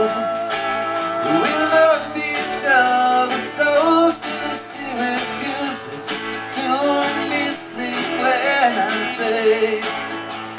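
Live acoustic band playing an instrumental break between sung lines: acoustic guitars strumming, with a melody line that slides and bends, over a hand drum.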